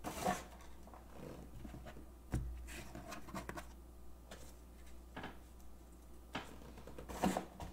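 Faint, scattered taps and rustles of trading cards being handled on a desk, about five sharp little knocks spread out over a steady low hum.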